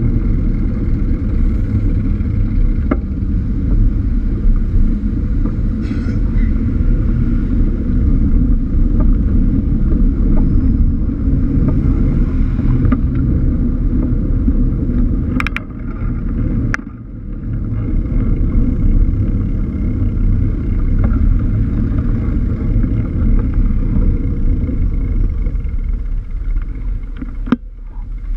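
Steady low rumble of wind buffeting and road and traffic noise on a bike-mounted action camera while cycling through city traffic. It dips briefly about halfway through, with a few sharp clicks there and another near the end.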